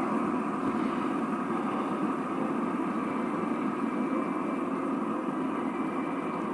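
Fidget spinners' ball bearings whirring steadily as they spin on a wooden tabletop.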